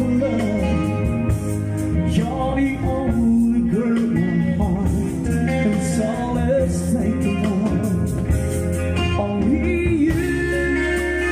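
Live band playing through a PA: electric bass, drum kit, electric guitar and keyboard, with a man singing into a microphone over them.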